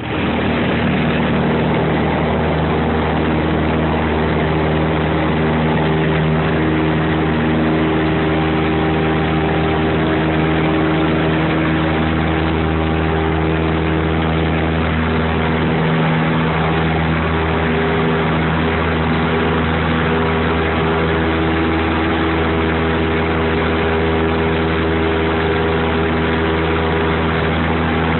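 Single-engine Cessna's piston engine and propeller running steadily at takeoff power, heard from inside the cabin as a loud, unbroken drone.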